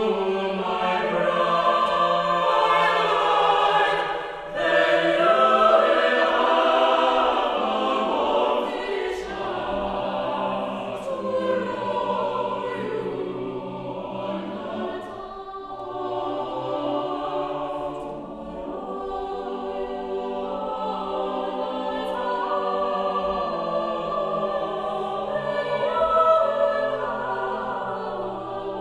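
Mixed chamber choir of male and female voices singing a folk-song arrangement unaccompanied, in sustained harmony. The singing dips briefly about four seconds in, comes back louder, softens through the middle and swells again near the end.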